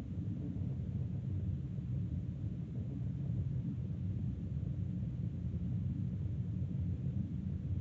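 Steady low rumble of an airliner cabin in flight: jet engines and airflow droning evenly.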